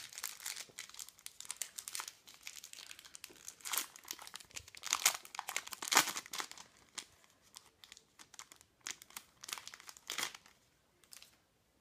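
Shiny foil wrapper of a Match Attax trading-card packet crinkling as it is torn open and the cards are slid out, in irregular bursts of rustling that are loudest about halfway through, with a last burst near the end.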